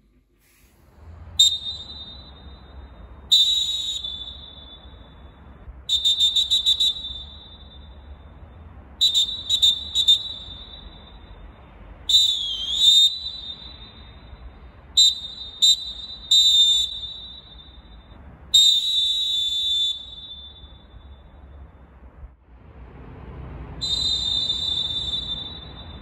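Molten Blazza plastic referee whistle blown in a string of shrill, single-pitched blasts: single short toots, quick double and triple toots, a fluttering trill and a long blast, each echoing off the empty stadium stands. The last blast, blown about 50 m away, is quieter.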